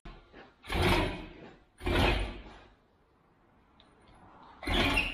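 Three short scraping, sliding metal sounds, each about half a second long, as a part of the Unimog is pulled and worked loose during disassembly.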